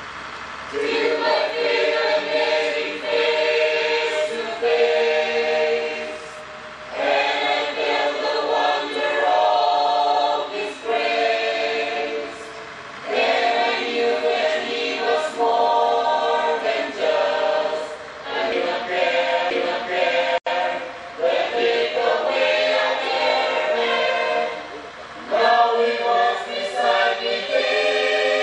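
Church choir of women's voices singing together in sung phrases of a few seconds each, with short pauses for breath between them.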